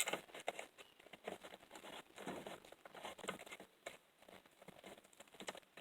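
Faint, irregular small clicks and scrapes of metal parts being handled as the spark arrestor screen is slid back into a small two-stroke engine's muffler, thinning out after about four seconds.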